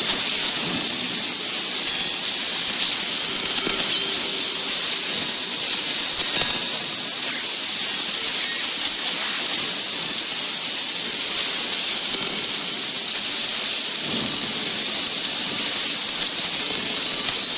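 Analog TV static: a loud, steady hiss of white noise, mostly high-pitched, with faint crackles through it, the sound of a television with no signal.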